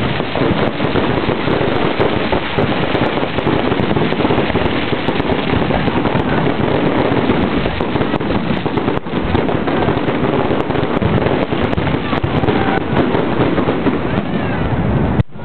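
Fireworks display at full barrage: many aerial shells bursting and crackling in quick, overlapping succession, with no pause. The sound drops out for a moment near the end.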